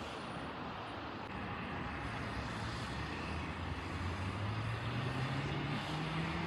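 Aircraft engine noise growing gradually louder, a steady rush with a low hum that slowly rises in pitch from about two seconds in.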